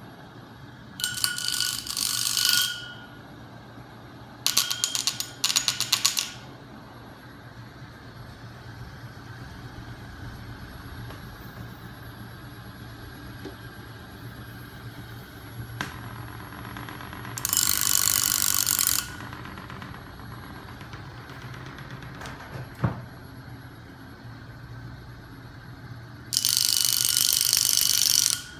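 Home-built magnet flywheel machine with a 5 kg flywheel, driven by a small 12 V electric motor, running with a steady low hum. Four times it breaks into a loud, rapid rattling of a second or two, the longest near the end.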